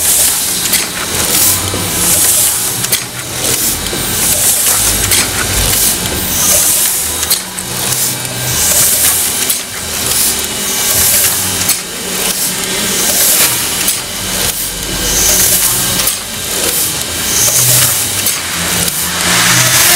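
Heidelberg T 10x15 windmill platen press running in a steady cycle while foil stamping, with a repeating mechanical clatter, clicks and puffs of air from each impression cycle. A steady hum comes in near the end.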